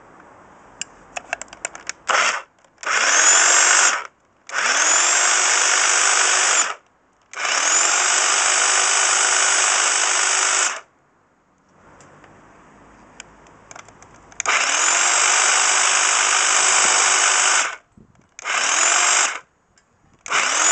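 Electric hedge trimmer switched on and off in about seven runs of one to three seconds each, its motor and blades whining up in pitch as they spin up at each start, then cutting off sharply. It runs through a 3 kW water-heater ballast on reduced current, and sounds good after its damaged flex was repaired with a connector.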